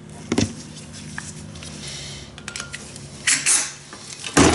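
Short bursts of compressed air from a blow gun, blown through a freshly soaked carburetor pilot jet and passages to clear them, with light clicks of small parts being handled in between. The loudest blast comes near the end.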